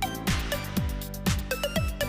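Electronic dance music with a steady kick drum about twice a second and short synth notes over it.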